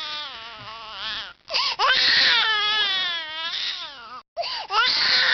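An infant crying hard: long, high-pitched wails that waver in pitch, broken by quick catches of breath about a second and a half in and about four seconds in.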